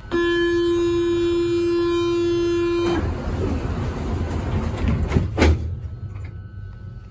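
Metro train's door-closing warning sounding as a loud steady buzz for about three seconds and cutting off sharply. It is followed by the sliding doors running shut with a knock about five seconds in, over the carriage's low rumble.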